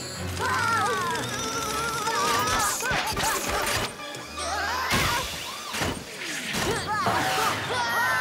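Cartoon soundtrack: fast background music with children screaming, near the start and again near the end, over crash and smash sound effects.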